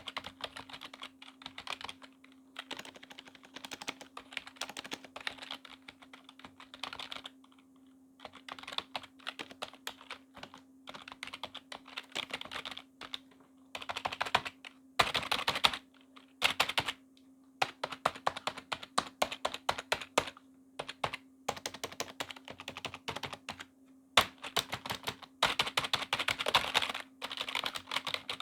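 Typing on a Corsair K55 membrane keyboard: rapid runs of soft key clicks with short pauses between words and phrases, busiest in bursts about halfway through and near the end. A faint steady hum sits underneath.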